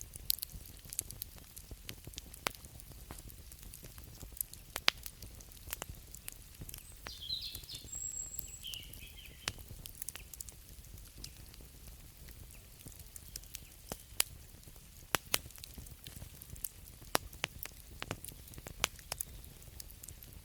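Wood fire crackling: irregular sharp pops and snaps, several a second at times, over a steady low rumble. A brief high chirp is heard about seven to nine seconds in.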